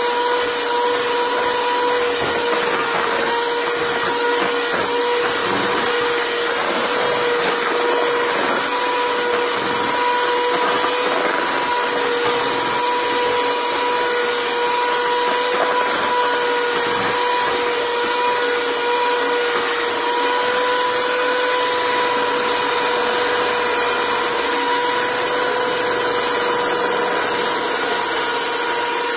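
Electric hand mixer running steadily, its beaters churning thick cake batter, with a constant motor whine.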